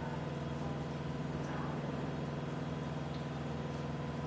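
Steady machine hum at an even level, with a few faint small sounds of hands working masala paste into fish on a steel plate.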